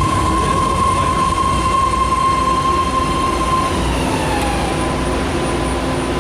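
BART subway train running in an underground station, with a low rumble under a high steady whine that drops in pitch about four seconds in.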